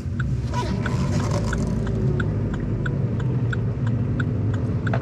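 Vauxhall Corsa D SRi engine running low inside the cabin, with a regular train of short electronic beeps, about three a second, from the rear parking sensor as the car is put into reverse.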